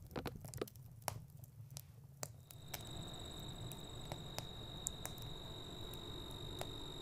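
Campfire crackling with scattered sharp pops. About two and a half seconds in, a steady high cricket trill joins over a low background rumble.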